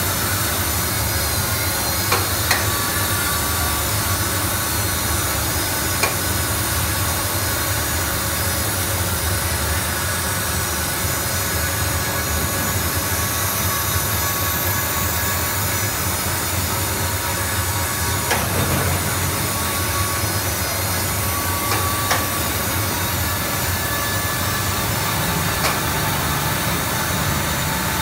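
Foam-cutting machine and its conveyor running steadily, a continuous mechanical hiss and hum with a few faint clicks and brief thin tones.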